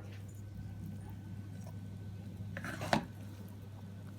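A spoon scooping cooked rice in a pot, with one short scrape about three seconds in, over a low steady hum.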